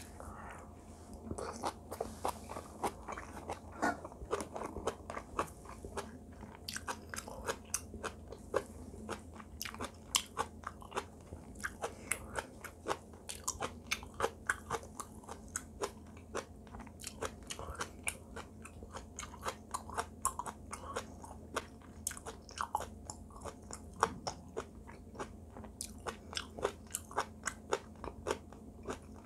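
Chewing and biting of braised kimchi (kimchi jijim) wrapped around rice: a steady stream of short, moist crunches and mouth clicks, several a second.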